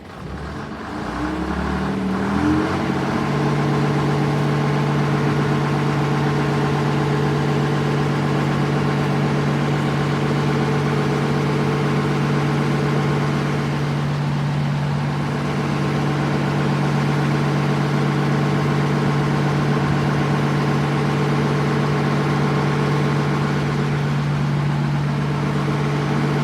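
A motor vehicle engine spins up over the first two or three seconds, rising in pitch, then runs steadily with an even drone.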